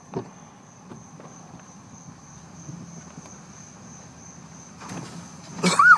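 Crickets chirring in a steady, unbroken high-pitched trill. Near the end, a short, loud pitched sound cuts in over it.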